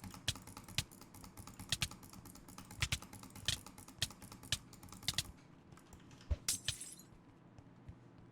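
Computer mouse buttons clicking sharply at an irregular pace. There are many clicks in the first five seconds, then two more about six and a half seconds in.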